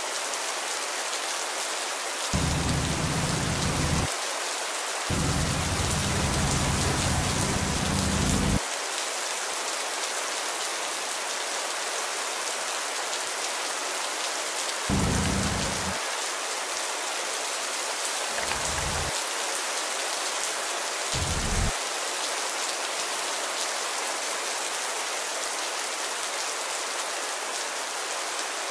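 Steady hiss of rain falling. Several short stretches of low rumble break in, the longest from about five to eight and a half seconds in.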